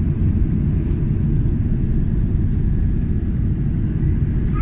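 Steady low rumble of an Airbus A330's jet engines and airflow, heard from inside the passenger cabin on approach to landing.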